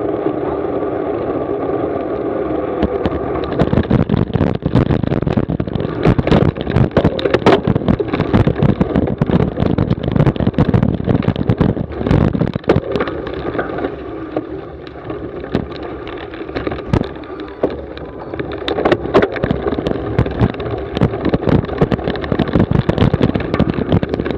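A cyclocross bike ridden in a race, heard from a camera mounted on the rider or bike: a steady tyre and wind hum on smooth pavement, then from about four seconds in a dense clatter of knocks and rattles as the bike jolts over rough dirt and grass.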